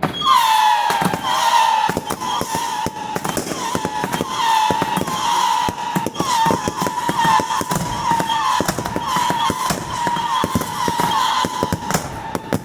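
A beehive firework tower going off: a dense barrage of bottle rockets and firecrackers, many rapid cracks and bangs under a steady shrill whistle. It starts suddenly and keeps up without a break.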